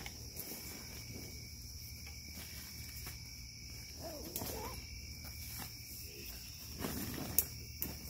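Crickets chirping in a steady, high-pitched chorus, with a few faint sharp knocks near the end.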